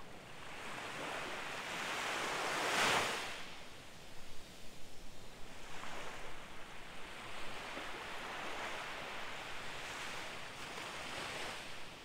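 Small waves breaking gently and washing up a sandy beach, the surf rising and falling in soft rushes. The loudest wash comes about three seconds in.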